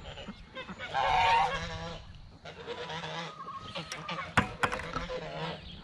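Domestic geese honking: one loud honk about a second in, then fainter calls, with a sharp click midway.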